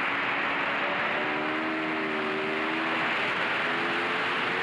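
Wind rushing over the microphone of a handlebar-mounted camera on a moving Aprilia Tuono V4 motorcycle, with the bike's V4 engine running faintly underneath, its pitch wavering a little.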